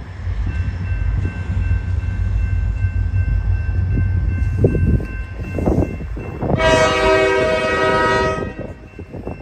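Diesel locomotive air horn on Marquette Rail engine 3406, sounding one long blast of nearly two seconds as a salute, about two-thirds of the way in. A low rumble from the approaching train runs underneath.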